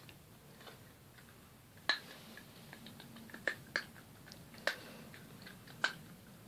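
A pet eating from a stainless steel bowl: about five sharp, separate clicks and crunches of food being bitten and knocking against the metal bowl.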